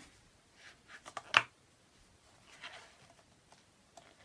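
Paper pages of a picture book being handled and turned: faint rustles and a sharp paper snap about a second and a half in, then a softer rustle.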